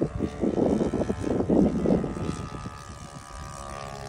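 Four-stroke nitro engine of a radio-controlled Corsair model plane in flight, a steady drone. For about two seconds near the start, loud ragged noise close to the microphone covers it, then the engine drone comes through clearly again.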